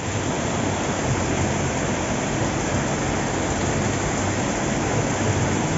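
Rainwater pouring down a stepped cascade in heavy rain: a steady, unbroken rush of falling water.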